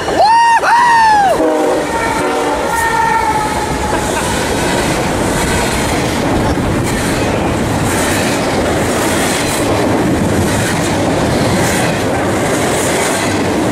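Whooping shouts in the first second or so, then the steady rumble and wheel clatter of a fast BNSF intermodal freight train's double-stack container well cars rolling past close by.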